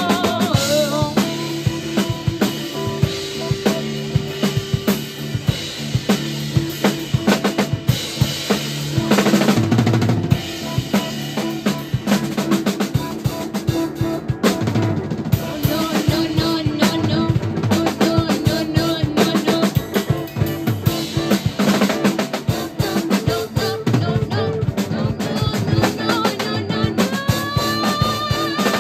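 Live band playing, with the drum kit loudest: busy snare, bass drum and rimshot hits over a steady bass line, with a few wavering higher notes on top.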